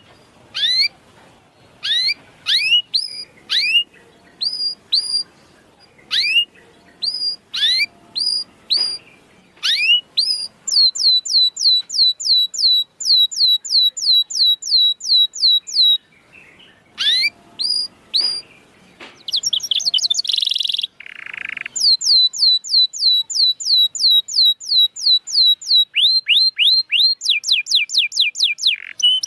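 Canary song: a string of separate upslurred chirps, then fast trills of repeated falling notes at about four a second, broken about two-thirds of the way through by two short, harsh buzzy notes and ending with a brief steady whistle. It is a canary lure recording (pancingan), played to stir a reluctant canary into singing.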